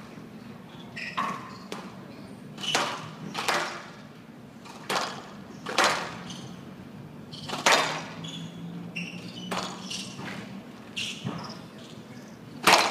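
Squash rally: the ball is struck by the rackets and smacks off the walls of a glass court, each hit sharp and ringing briefly, about a dozen of them at roughly one a second, the loudest near the end.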